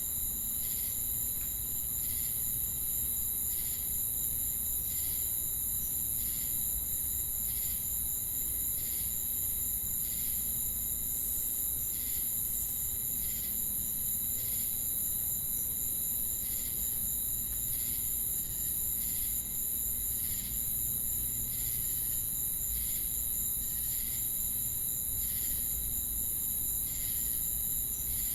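Night insect chorus of crickets and cicadas: a steady, high-pitched continuous drone, with a shorter chirp repeating about once a second.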